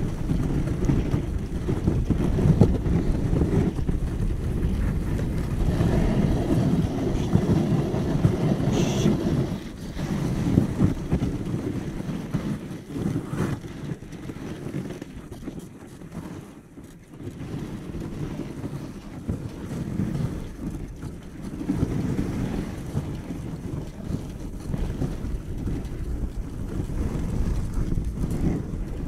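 Wind buffeting the microphone on a moving dog sled pulled over snow by a husky team: a steady low rush that eases for a few seconds about halfway through.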